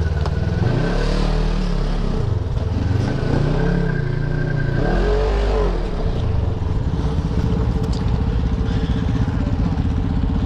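Off-road side-by-side buggy's engine, revving up and easing off several times while driving. From about six seconds in it runs steadier at lower revs.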